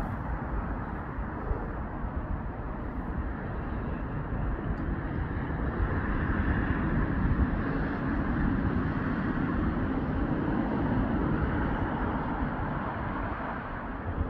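Road traffic noise: a steady low rumble of vehicles, swelling for several seconds in the middle as a vehicle passes closer, then easing off.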